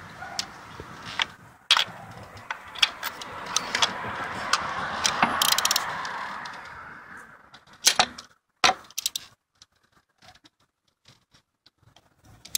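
Ratchet, socket and extension clicking and clinking as spark plugs are threaded back into the cylinder head and tightened, with a busy run of small metal clicks that swells and fades. Then a few sharp metal clacks about eight seconds in, and light scattered ticks.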